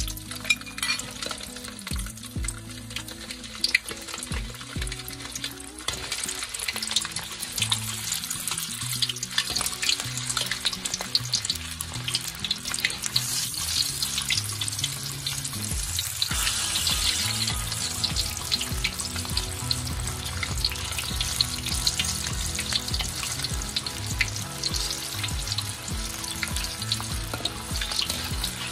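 Shallots and dried garlic frying in very hot oil in a stainless steel wok, a dense sizzle full of small crackles, stirred now and then with a metal slotted ladle. The sizzle grows louder about halfway through.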